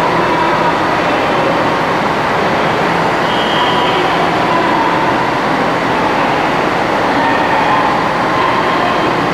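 KiHa 183 series diesel train approaching slowly on curved station track, giving a steady, loud run of engine and wheel noise with a few short, faint high squeals from the wheels.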